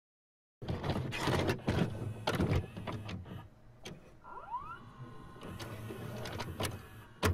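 Videocassette recorder mechanism loading and starting a tape: a run of clicks and clunks, a short rising motor whine about four seconds in, then a quieter mechanical run with a few more clicks.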